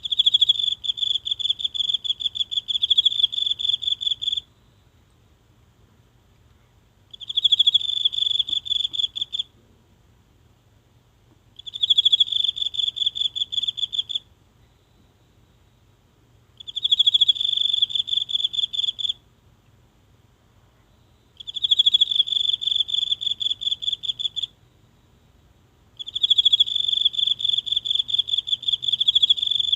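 A single insect singing close up: six high, pulsing trills of about two to four seconds each, all at one steady pitch, with pauses of two to three seconds between them.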